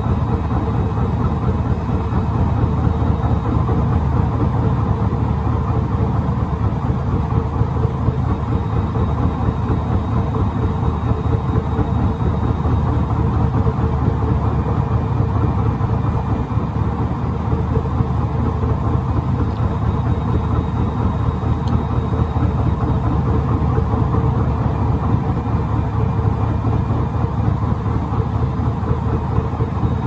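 Hoover H-Wash 700 front-loading washing machine spinning its drum on a cottons 60° cycle, a steady low hum of motor and drum that holds unchanged throughout. The load is heavily over-sudsed, the condition that sets off the machine's suds lock on the second spin.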